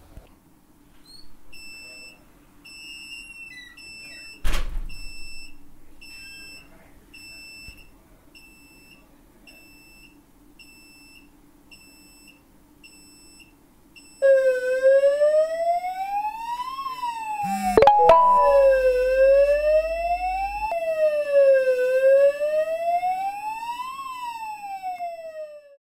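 Y-cam Protect alarm hub beeping short, high, evenly spaced beeps, about one and a half a second, with a single knock about four seconds in. After about fourteen seconds its siren sounds: a loud wail rising and falling every few seconds over a steady high tone, which means the alarm has been triggered. It cuts off just before the end.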